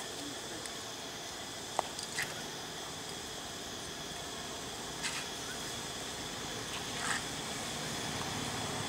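Insects droning steadily in a high pitch, with a few short sharp sounds about two, five and seven seconds in.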